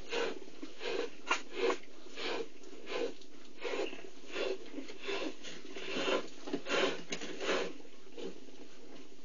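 Mother cheetah licking and grooming her newborn cubs: irregular short, noisy strokes of tongue and muzzle on fur, about two a second, over a steady hiss.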